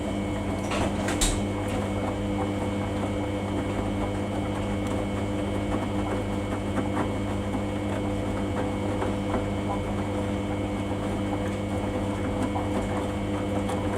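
Samsung washing machine running on its Daily 40 wash cycle, a steady motor hum with a couple of light clicks about a second in.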